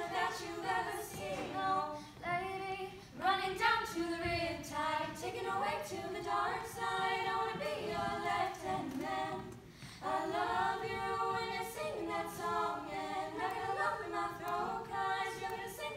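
Group of girls singing a pop song a cappella in unison into microphones, in sung phrases with some longer held notes.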